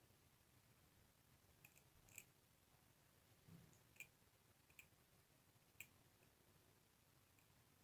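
Near silence, broken by about half a dozen faint, sharp clicks of steel tweezers touching the plate and parts of a Durowe 570 watch movement as a bridge plate is positioned over the wheel train.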